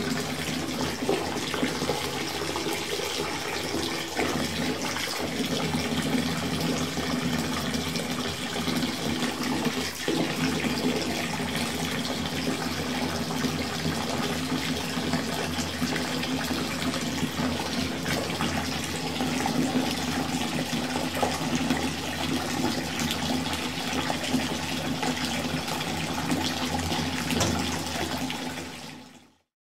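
Water running and splashing in a bath, a steady rush with a few small clicks. It fades out near the end.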